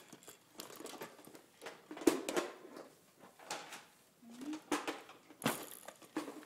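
Baby making wet smacking and clicking noises with his mouth while sucking on his fingers: a string of short, irregular smacks, the sharpest about two seconds in and again near the end. About four seconds in there is a brief rising little vocal squeak.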